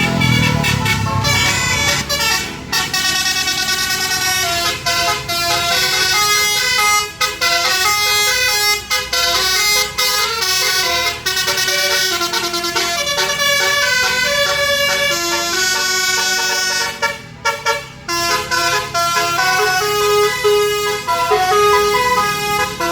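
Basuri multi-note bus horn playing a fast melody of short stepped notes, broken by a few brief pauses, with a low rumble in the first second or so.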